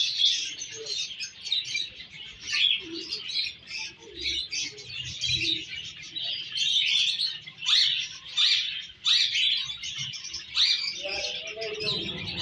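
Diamond firetail finches chirping continuously, many short high calls overlapping, with a few downward-sliding calls about eight and nine seconds in.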